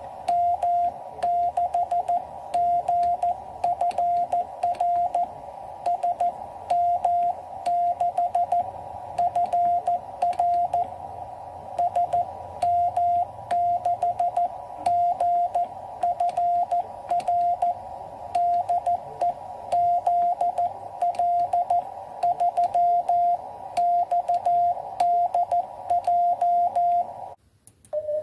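Morse code (CW) sidetone from a QCX Mini QRP transceiver: a single steady tone keyed in dots and dashes over a faint hiss of band noise. It is sending QRL? to check whether the frequency is in use, then the call SM6GFR DE ZL3XDJ. The tone breaks off about a second before the end.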